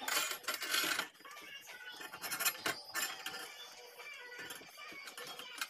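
Metal parts and a clamp clattering as they are handled on a workbench, loudest in the first second, then a few light knocks over faint background music.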